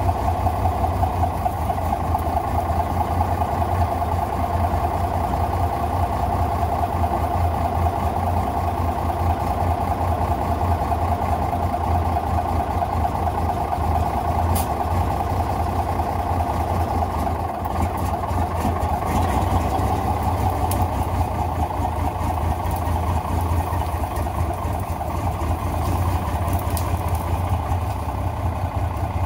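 Cummins 250 non-turbo inline-six diesel of a 1970 XM818 6x6 army tractor truck running steadily, with no revving.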